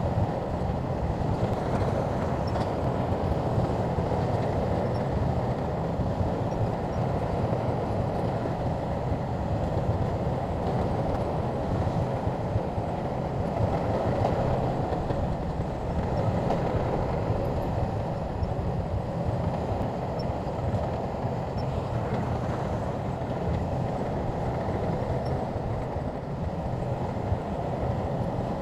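Shantui crawler bulldozer working, its diesel engine running steadily under load with a low drone, and a few faint clanks from the tracks.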